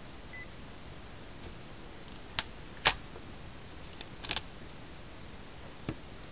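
A Sharp SH903iTV flip phone being handled: a brief faint beep, then a series of sharp plastic clicks as it is snapped shut and its pull-out TV antenna is pushed in, and a lighter tap as it is set down on the wooden table.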